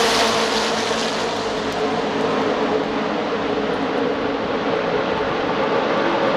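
A field of NASCAR Cup stock cars with V8 engines running at speed around the oval, heard from the grandstand. The rush of the pack going by fades in the first second, leaving a steady multi-engine drone as the cars run around the far side of the track.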